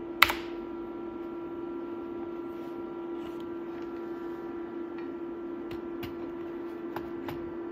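A single sharp keystroke on the Dolch PAC 60 luggable's keyboard, the equals key pressed at the Minix boot monitor to start Minix loading. After it comes a steady low hum with a constant tone, and a few faint ticks later on.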